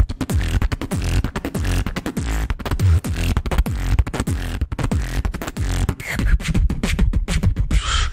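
A beatboxer performing into a microphone: a rapid, dense run of vocal kick and snare hits over a heavy bass line.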